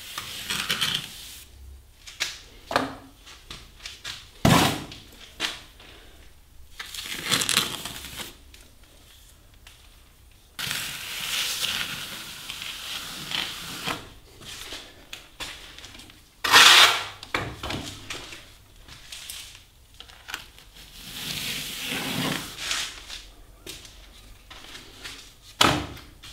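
Small plastering trowel scraping and smoothing wet plaster on a door reveal, in irregular strokes, one of them a long scrape of about three seconds near the middle.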